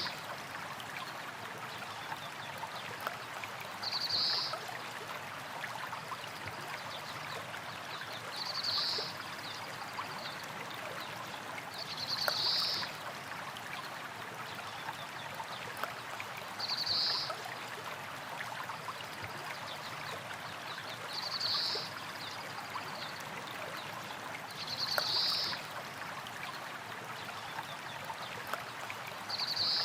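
Small stream running over rocks: a steady babble of flowing water with fine trickles. A short, high sound rises above it about every four seconds.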